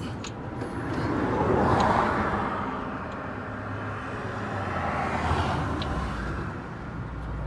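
Road traffic passing: a vehicle's noise swells to a peak about two seconds in and fades, and a second, weaker pass follows about five seconds in.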